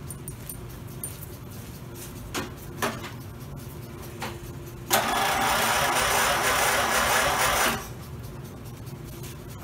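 Electric starter on a 1990 Murray lawn tractor cranking the engine for about three seconds, testing a freshly rebuilt starter drive, then cutting off. A couple of light clicks come before it.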